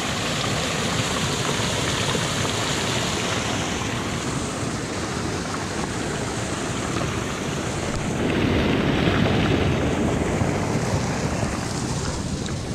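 Water pouring out of a large drainage pipe and splashing into a pool, a steady rush, mixed with wind on the microphone; it grows louder for a couple of seconds about eight seconds in.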